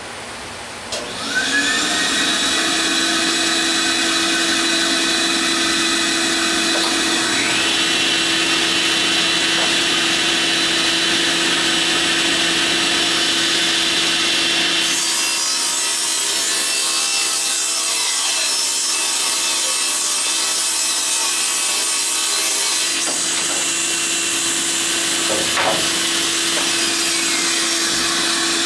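A cabinet table saw starts up, spinning up to speed about a second in, then runs with a steady hum and whine while 3/4-inch plywood is ripped through the blade. The cutting noise changes partway through.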